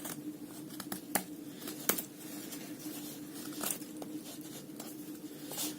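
Pocket-knife blade shaving curls from a wooden stick to make a feather stick, using the plain part of the edge near the handle of a Victorinox German Army Knife. The strokes come as a handful of separate short scrapes, a few seconds apart.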